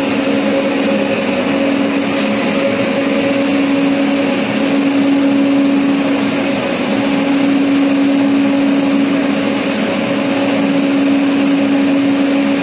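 Steady mechanical hum with a constant low drone and a fainter higher tone above it, unchanging throughout.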